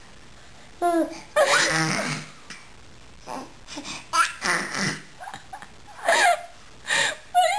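A baby making funny babbling vocal noises, with bursts of laughter between them, in about half a dozen short outbursts separated by brief pauses.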